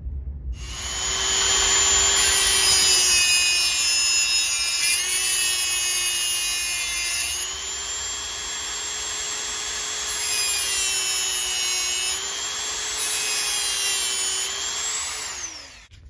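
Rotary tool with a small abrasive cutoff wheel running at high speed, cutting off the protruding end of a thread-repair coil installed in an aluminium transmission case. It starts about half a second in, its whine dips in pitch several times as the wheel bites, and it winds down just before the end.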